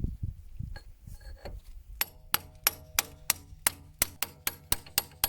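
Quick, light hammer taps on steel, about three a second, starting about two seconds in, each with a short metallic ring. Softer knocks come before them.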